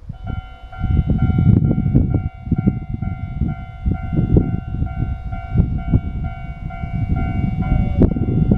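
Japanese railway level-crossing alarm ringing its repeated electronic bell, about two and a half strokes a second, starting right at the beginning. A heavy low rumble sounds underneath it.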